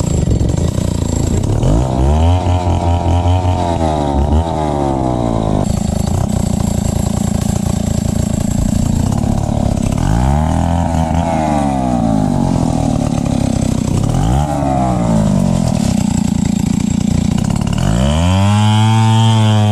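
Two-stroke chainsaw revved up and down in several bursts, dropping back toward idle between them. Near the end it is held at high revs, cutting into the base of a tree.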